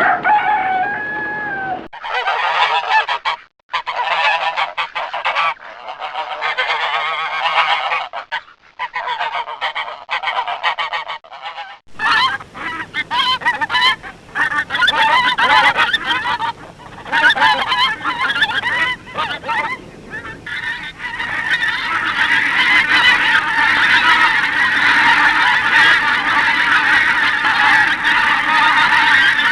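A flock of ducks quacking in a dense, overlapping chorus, with several recordings joined one after another: the sound changes abruptly about two seconds in and again about twelve seconds in. The calling grows denser and steadier in the last third.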